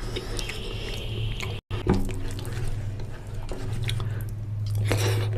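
Wet, squelching sounds of oily mutton curry and rice being eaten, with small clicks over a steady low hum and a very brief break about a second and a half in.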